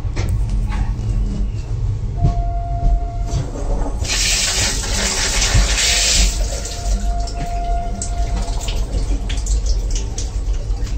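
Flush of an Indian Railways sleeper-class squat toilet: about four seconds in, water gushes from the flush pipe onto the stainless-steel pan for about two seconds, then stops. Under it runs the steady low rumble of the moving train.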